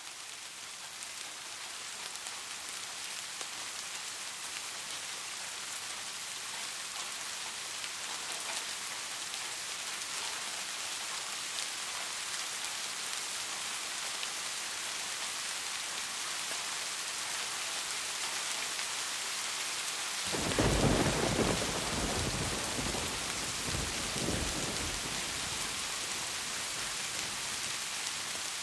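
Steady heavy rain, a dense even hiss that swells up over the first couple of seconds. About twenty seconds in, a roll of thunder breaks in suddenly and rumbles low for several seconds before dying back under the rain.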